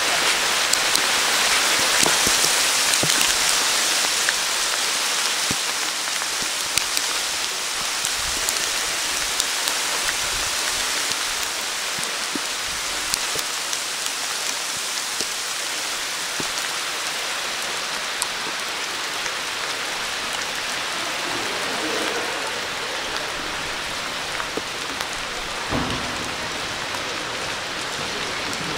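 Steady rain falling: a dense, even patter with many single drops striking close by. It is loudest in the first few seconds, then eases a little and holds steady.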